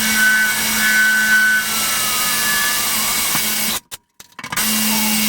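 Power drill with a diamond bit running steadily as it grinds through wet porcelain tile, with a thin high squeal from the bit in the first couple of seconds. The drill cuts out for about half a second near the end, then runs again.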